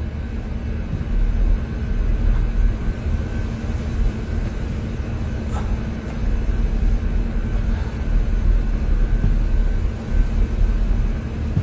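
Steady low rumble of a car driving along a road, heard continuously with a faint steady hum over it.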